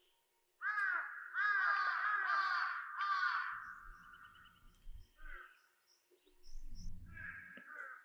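Crow cawing: a quick run of harsh caws starting about a second in and lasting about three seconds, then a few fainter caws near the end.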